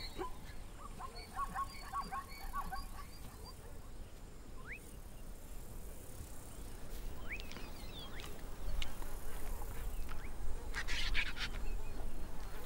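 Outdoor natural ambience of birds calling: a quick run of short, repeated calls at first, then a few thin rising whistles. A low rumble swells in the last few seconds, and a short burst of crackling clicks comes near the end.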